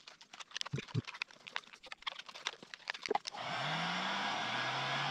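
A plastic bottle neck crackles and clicks as it is bent by hand. About three seconds in, a heat gun switches on: its fan motor hums up in pitch and settles into a steady rush of blowing air.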